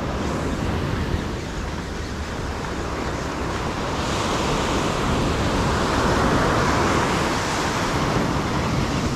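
Small waves breaking and washing up a sandy beach in a steady wash of surf, swelling louder from about four seconds in to near the end.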